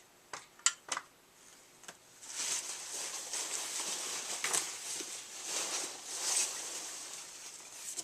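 Packaging being handled while a die-cast car is unboxed: a few sharp clicks, then about six seconds of continuous rustling and crinkling.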